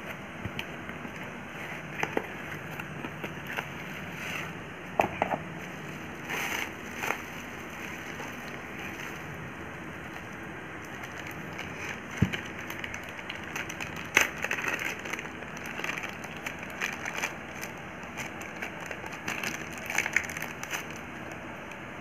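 Unboxing by hand: scissors snipping a cardboard box, then bubble wrap and a plastic zip bag crinkling and rustling in short, scattered bursts, over a steady background hiss.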